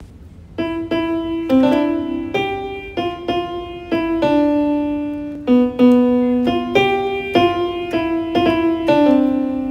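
Solo piano music: a simple, unhurried melody of single struck notes that ring and fade.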